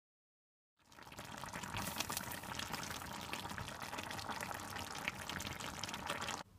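Brown stew mackerel simmering in its sauce in a pan, bubbling and crackling. It starts about a second in and cuts off suddenly near the end.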